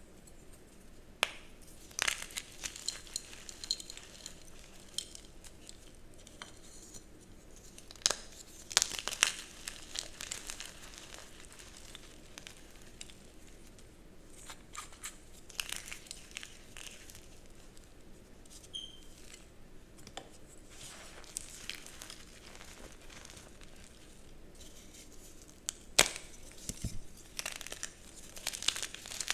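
Dyed gym chalk blocks being crushed and crumbled by hand, crunchy yet soft. Dry crunching and crackling come in irregular bursts with quieter gaps between them; the sharpest crunches come about eight seconds in and again near the end.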